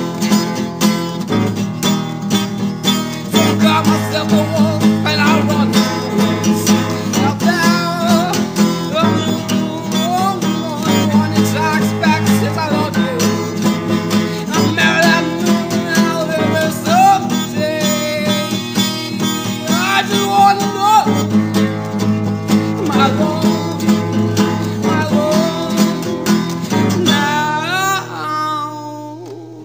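Acoustic guitar strumming with a gliding melody line over it; the music drops away near the end.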